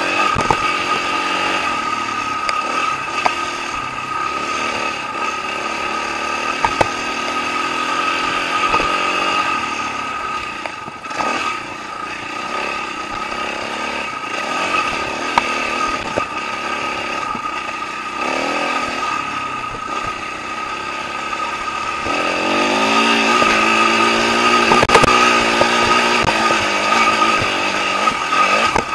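Dirt bike engine heard from on board, its pitch rising and falling as the throttle is worked on a loose dirt trail, with a few sharp clicks. It grows louder and revs higher about three-quarters of the way through.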